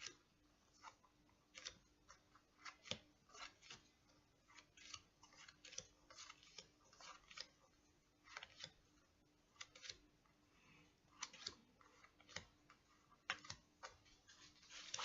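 Tarot cards being sorted into order by hand: soft, irregular snaps and taps of cards being handled and laid down, roughly one or two a second.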